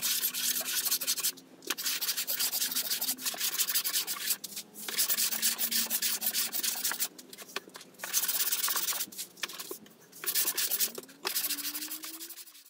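Sanding a plywood panel by hand-held abrasive, a steady scraping rub in stretches of a second or more, with short pauses between them.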